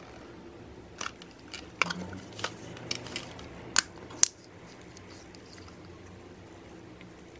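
A plastic tub of slime being opened and handled, with a quick series of sharp plastic clicks and sticky pops over the first few seconds, then quieter soft handling as a finger works into the slime and pulls it from the tub.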